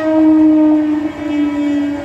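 Electric multiple-unit passenger train's horn sounding one long steady note, its pitch dropping slightly as the train goes by. The rumble of the coaches rolling past grows beneath it.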